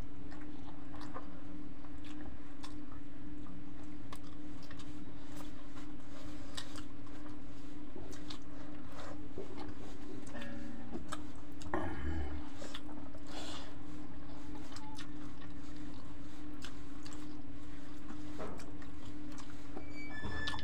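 Two people eating rice by hand from steel plates: chewing, and fingers working the rice against the plates in scattered small clicks, over a steady low hum.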